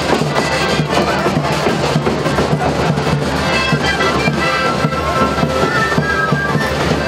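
Andean marching brass band playing in the street: brass and sousaphones carrying a melody over a steady bass-drum beat.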